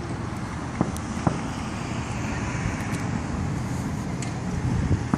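Distant aerial fireworks: a few sharp pops, two about a second in and more near the end, over a steady outdoor rumble.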